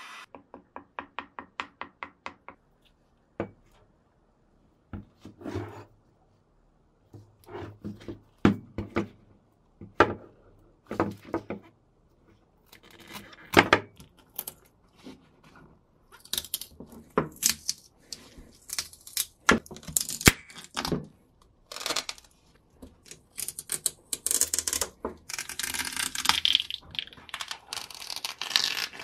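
Tape-and-plastic mould being broken and peeled off a cured epoxy-resin axe handle. A quick run of ticks at first, then scattered clicks and knocks as pliers crack and pull at the hard casing. From about midway, steady tearing and crinkling as the wrapping is stripped off by hand.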